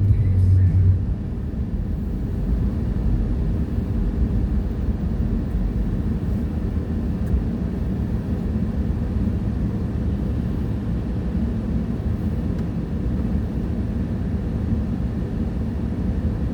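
Steady low rumble of engine and road noise inside a moving vehicle's cabin, with a louder low hum that drops away about a second in.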